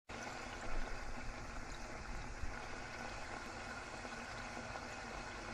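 Sopaipilla dough frying in hot oil: a steady sizzle with a few faint pops.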